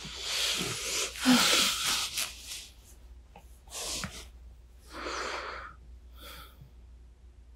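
Breathing close to a binaural microphone: a long, loud, noisy breath at the start, then three shorter breaths about a second apart.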